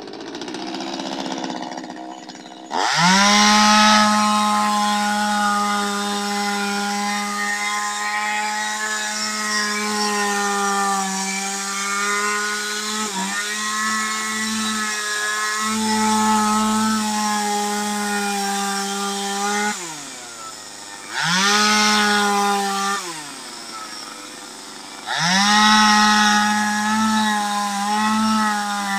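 Two-stroke chainsaw cutting into a log for carving: quiet at first, then revved to full throttle about three seconds in and held there while the chain bites, its pitch dipping slightly under load. Near the end the throttle is let off twice and opened again each time.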